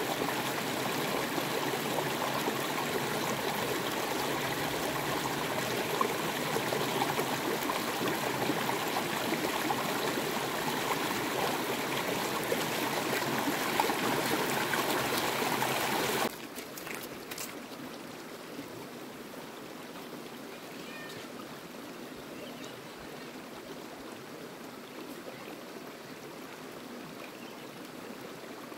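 Steady rushing water, like a flowing stream. About sixteen seconds in it cuts off abruptly to a much quieter, steady water sound with a few faint clicks.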